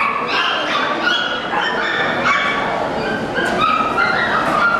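Many small dogs, poodles, yapping and barking at once: a steady din of short, high-pitched, overlapping yips with no pause.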